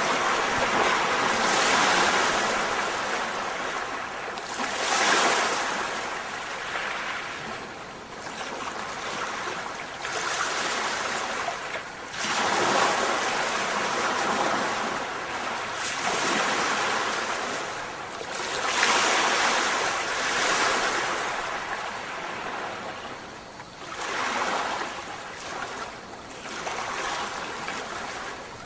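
A rushing noise that swells and fades every two to three seconds.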